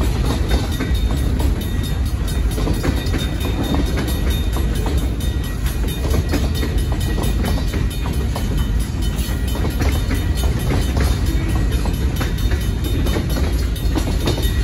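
A freight train's boxcars and a tank car rolling past at a grade crossing: a steady rumble of steel wheels on the rails, with irregular clicks as the wheels pass over rail joints.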